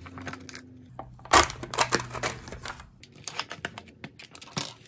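Sealed film lid being peeled off a plastic yogurt cup: crinkling and tearing in a series of short rips, loudest about a second and a half in.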